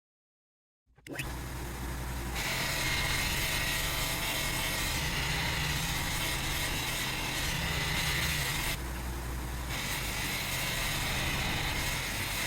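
Electric power tool running steadily, starting abruptly about a second in, with a high whine that drops out for about a second near the end and then returns.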